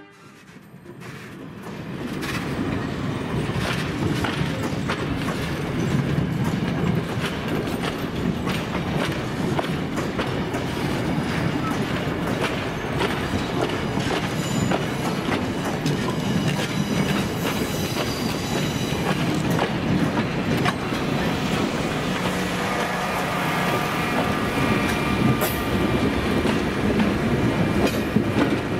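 Passenger coaches rolling slowly past close by on jointed track: a steady wheel rumble with clicking over the rail joints, fading in over the first two seconds. In the last several seconds the engine of an EMD GP38 diesel locomotive joins in as it comes alongside, adding a steady hum.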